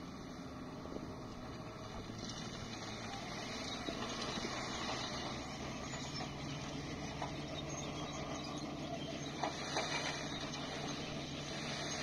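Dump truck's diesel engine running steadily as its bed is raised to tip a load of soil, with a few short knocks about nine and a half to ten seconds in.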